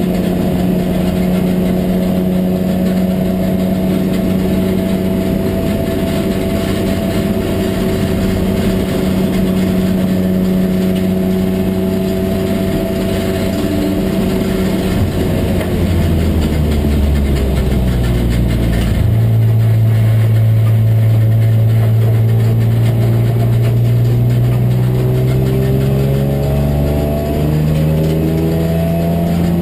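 BMW M3 race car engine heard from inside the cockpit, held at steady high revs, then dropping in pitch in several steps as the car slows and changes down. It then climbs again steadily under acceleration, with a brief dip near the end at an upshift.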